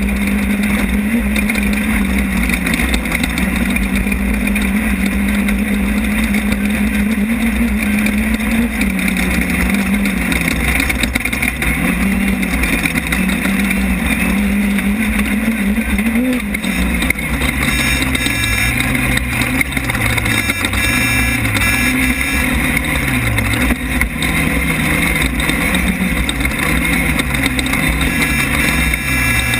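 Off-road desert race car's engine running hard, recorded from an onboard camera, with a constant low rumble of the car underneath. The engine note holds steady for the first several seconds, then drops and climbs back twice. After that it rises and falls every second or two at a lower pitch as the throttle is worked.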